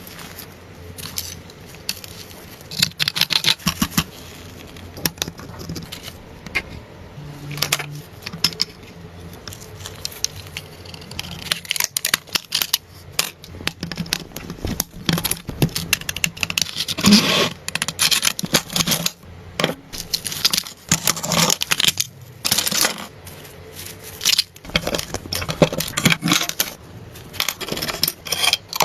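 Irregular scraping and rubbing broken by many small, sharp metallic clicks and clinks, as of hand work with tools on a vehicle being cleaned and repaired.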